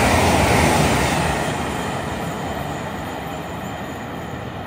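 GWR Class 800-series Intercity Express Train passing at speed. The rushing wheel and air noise fades steadily from about a second in as the rear of the train draws away.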